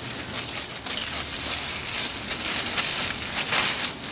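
Dry leaves and debris crunching and crackling as they are scooped out by hand, in an irregular run of crackles.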